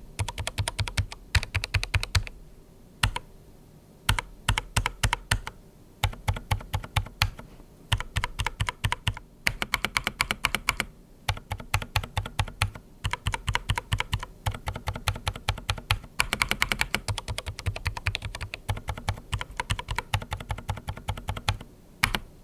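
Fast typing on the darkFlash DFS99, a low-profile mechanical keyboard with linear red switches and internal sound-dampening foam: quick runs of key clicks with short pauses between them.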